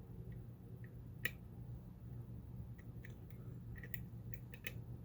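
Light metallic clicks and ticks of a lock pick working pins inside a pin-tumbler lock cylinder, a dozen or so irregular clicks with one sharper click a little over a second in, over a low steady hum.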